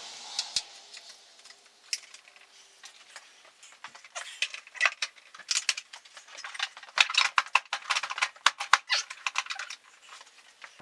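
Rapid, irregular run of sharp clicks and clinks of small hard objects being handled, scattered at first and dense from about four seconds in until near the end.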